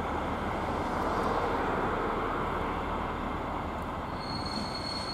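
DB class 218 and class 215 diesel-hydraulic locomotives running in multiple past at the head of a heavy train: a steady diesel drone and the rumble of wheels on rail, with a thin, high wheel squeal setting in about four seconds in.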